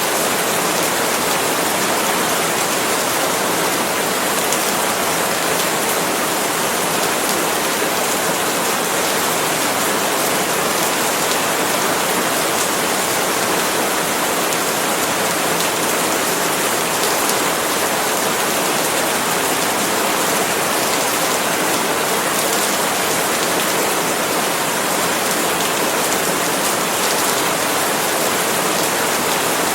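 Steady rain falling on palm leaves, an even, unbroken hiss.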